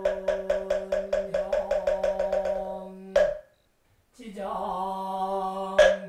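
A Buddhist monk chanting on one held note to a fast, even run of moktak (wooden fish) strikes, about six a second, which ends with a single louder strike. After a brief break the chanting resumes, with one more moktak strike near the end.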